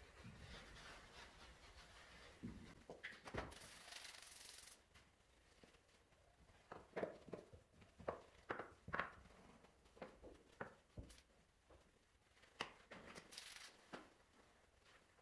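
Faint rubbing and scrubbing of a car's interior door trim being cleaned by hand, in many short strokes, with two brief hissing bursts from a trigger spray bottle.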